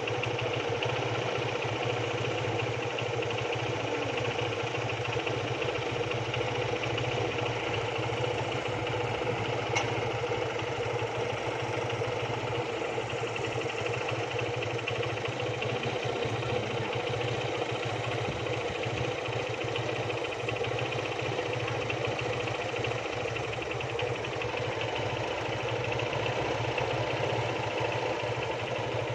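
A construction machine's engine running steadily at a constant speed, with one brief click about ten seconds in.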